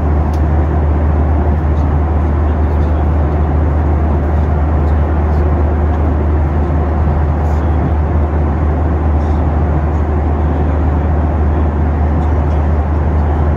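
Boeing 737 cabin noise in flight: a steady low rumble of the jet engines and airflow, unchanging throughout.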